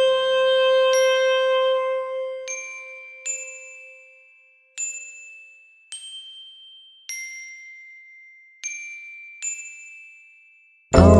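Sparse passage of an ambient pop track: a held note fades out, then single high bell-like notes, glockenspiel-like, are struck one at a time a second or so apart, each ringing and dying away. Right at the end the full arrangement comes back in loudly.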